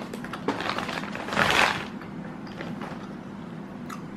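Plastic snack packet crinkling and rustling as it is handled, with a louder rustle about a second and a half in and small clicks around it.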